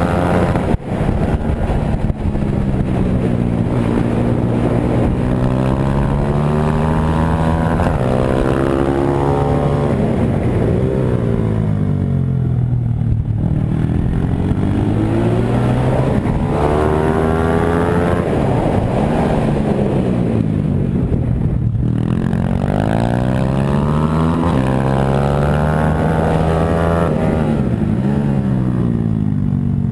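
Pit bike engine running and revving up and down over and over, its pitch rising and falling every few seconds.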